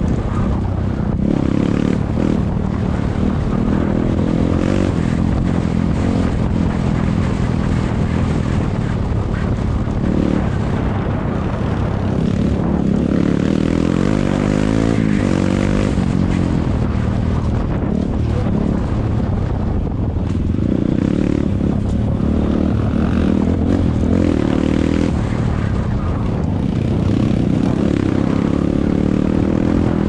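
Single-cylinder dirt bike engine running as the bike climbs a dirt trail, its pitch rising and falling with the throttle, with a longer rev up and back down around the middle.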